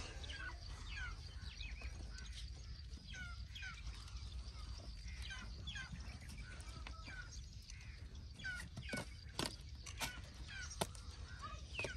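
Birds chirping: many short, quick calls that fall in pitch, over a steady low rumble, with a few sharp clicks near the end.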